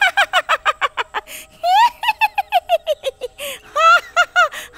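A witch's high-pitched cackling laugh in a woman's voice, coming from a possessed man. It comes in three runs of quick 'ha-ha' bursts.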